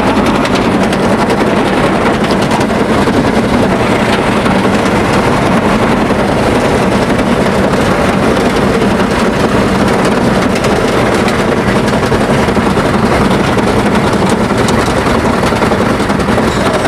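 Car engine running loudly and steadily, with a dense rushing noise throughout and no clear rise or fall in revs.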